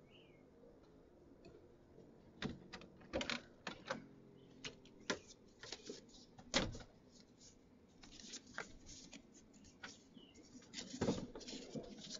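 Irregular clicks and knocks of people moving about and settling inside a small wooden shed, the loudest about six and a half seconds in. A bird chirps briefly at the start.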